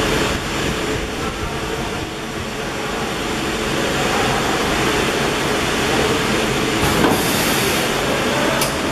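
Steady mechanical hiss and rumble of a 25 kW high-frequency PVC welding machine running. A brief louder hiss comes about seven seconds in, and a sharp click follows near the end.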